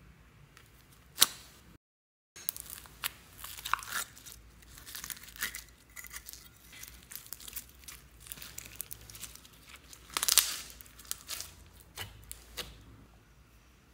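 Clear plastic bear-shaped slime container being handled and opened: sharp plastic clicks and crackles, a brief cut to silence just before two seconds, and a louder crinkling burst about ten seconds in. A few softer crackles follow as the brown foam beads are pressed into the slime.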